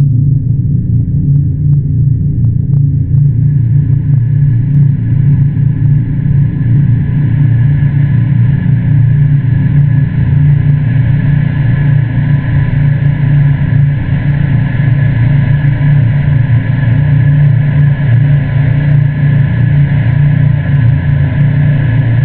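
A loud, steady low rumble, with a fainter hiss above it that swells in over the first several seconds.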